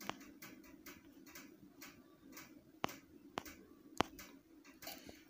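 Faint, light ticking in a quiet small room, about two clicks a second, with two sharper clicks a little after the middle.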